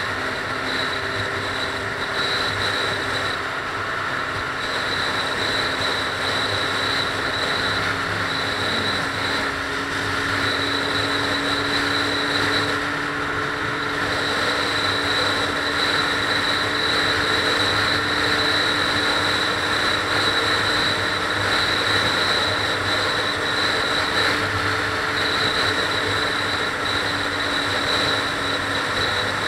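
Car driving at highway speed: steady tyre and road rush with a low engine hum and a faint high-pitched tone that comes and goes.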